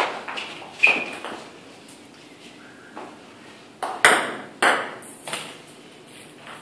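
Table tennis balls clicking sharply off a paddle and the table during serve practice: a string of irregular single clicks, the loudest about four seconds in.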